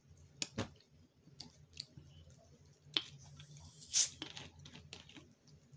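Small handling noises: a few sharp clicks and plastic crinkles. The loudest is a short crackle about four seconds in as a plastic bottle's screw cap is twisted open. A faint low hum lies underneath.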